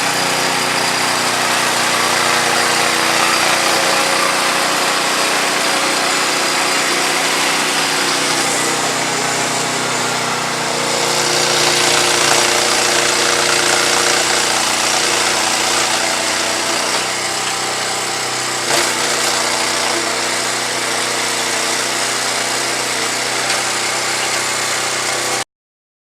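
An engine running steadily, starting and cutting off abruptly.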